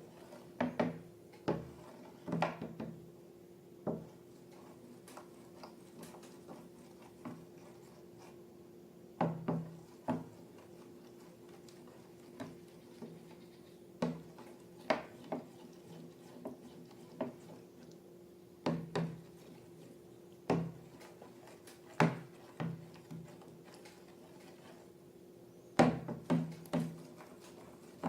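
Irregular taps, clicks and knocks from hands handling slime-making materials, some in quick runs of two or three, over a steady low hum.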